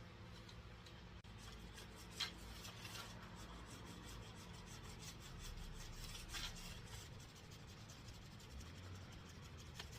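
Faint, repeated rubbing and scraping strokes of hand-tool work on a door screen and its frame, with two louder scrapes.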